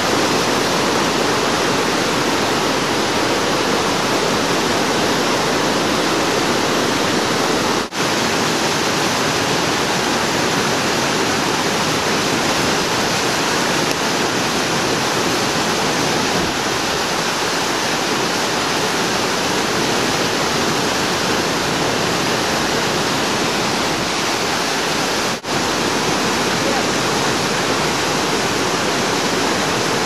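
Loud, steady rush of a mountain stream cascading over boulders and pouring through a narrow rock channel as a small waterfall. The sound drops out for an instant twice.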